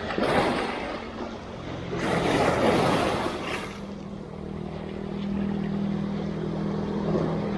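Small waves washing against shoreline rocks in two surges, then a steady low engine hum, a motorboat's, sets in about four seconds in and carries on.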